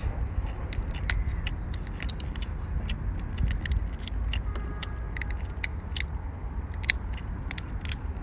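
Shell of a large cooked prawn crackling and clicking as it is peeled apart by hand, many small sharp cracks in quick, irregular succession, over a steady low rumble.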